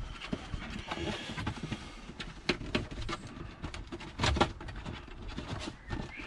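Plastic rear trim piece of a BMW 1 Series centre console being pushed and wiggled into place, with irregular clicks and knocks, the loudest about four seconds in. Its lugs and spring clips are misaligned, so it won't snap in.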